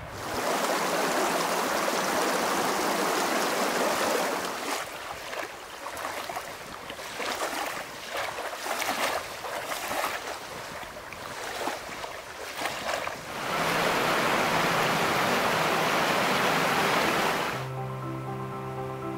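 Small waves lapping unevenly against a lake's gravel shore, between stretches of steady rushing noise. Soft music with held notes comes in near the end.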